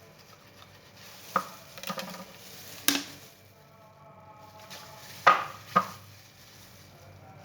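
A knife cutting into a raw mutton leg, the blade striking the cutting board in about five sharp knocks with pauses between.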